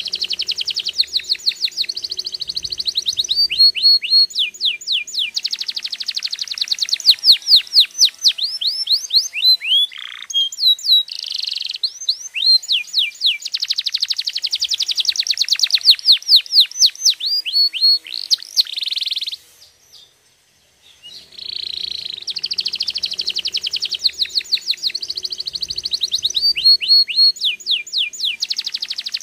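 Domestic canary singing long phrases of rapid trills and runs of repeated downward-sweeping notes. The song breaks off for about two seconds past the middle, then starts again.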